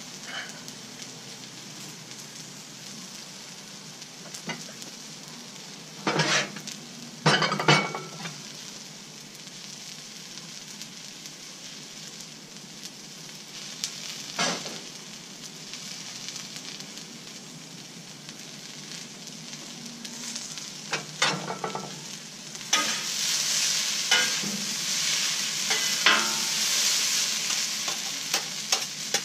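Fried rice sizzling steadily on the steel top of a Blackstone flat-top griddle, with a few sharp knocks. Near the end the sizzle grows louder as metal spatulas scrape and turn the rice against the griddle.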